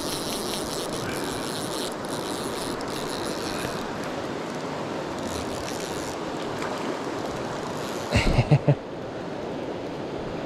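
A fly reel clicking as line is wound in during the first few seconds while a hooked pink salmon is played, over the steady rush of a river. A few loud, low thumps come about eight seconds in.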